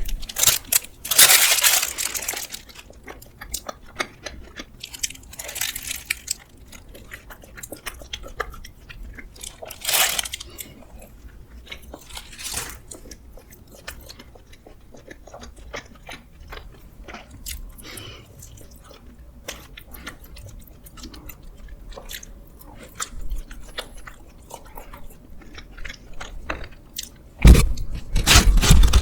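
Close-miked eating sounds: crunching, biting and chewing, broken by several loud crackly bursts, the longest near the end.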